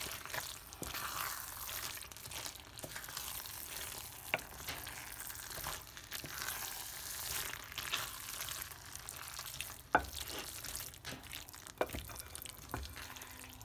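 Wooden spoon stirring and tossing sauced spaghetti in a ceramic baking dish: a continuous soft, wet stirring noise, with a few sharp knocks of the spoon against the dish, the loudest about ten seconds in.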